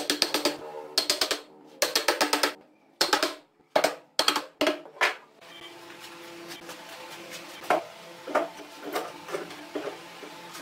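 Hand-held wooden stick knocking the joints of a wooden table frame together, in several quick runs of about ten blows a second over the first five seconds. After that, scattered lighter knocks as metal pipe clamps are handled and fitted to the frame.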